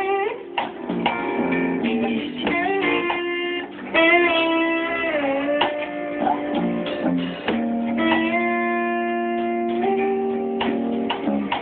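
Guitar playing an instrumental passage: held notes and chords, with several notes bending and sliding in pitch together about four seconds in.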